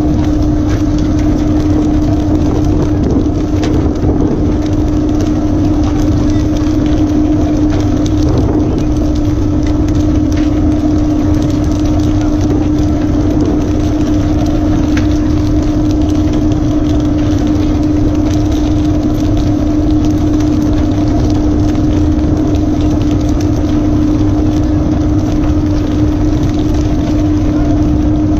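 Fishing boat's engine running steadily: a loud, unchanging drone with one strong, even hum over a low rumble.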